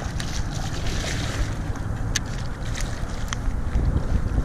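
Wind buffeting the microphone, with water splashing beside a kayak and a few sharp clicks about two and three seconds in.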